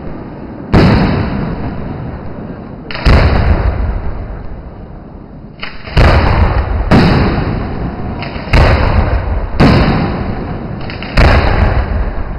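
Aerial firework shells bursting: seven heavy bangs about one to three seconds apart, each followed by a long rumbling echo that fades away.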